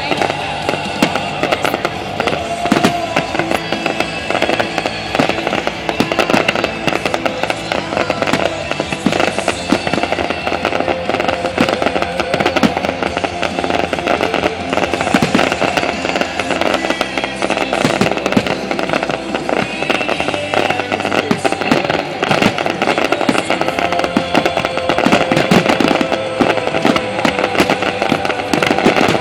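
Fireworks display: a continuous run of aerial shell bursts and crackling, dense and overlapping.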